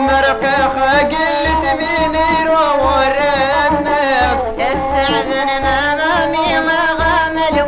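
Rifian folk song from a 45 rpm record: a wavering, ornamented melody line, with singing, over a low drum beat that recurs about once a second.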